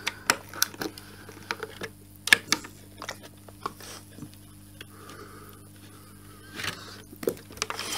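Irregular light clicks and knocks of hands and a screwdriver working on a Kirby G4 vacuum cleaner's housing while its front cover screws are being taken out, over a faint steady low hum.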